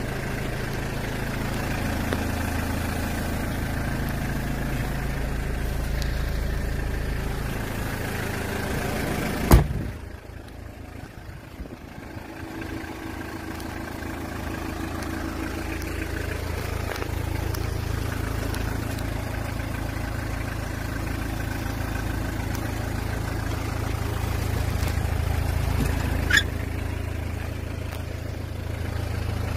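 2001 Hyundai Porter's diesel engine idling steadily. About ten seconds in, a loud thump of a door shutting, after which the engine is quieter for several seconds; a sharp click comes near the end.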